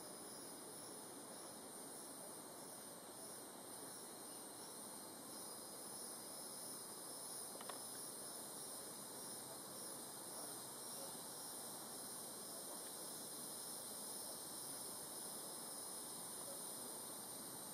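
Insects calling steadily in the background, a high pulsing trill over a faint even hiss, with one small click about eight seconds in.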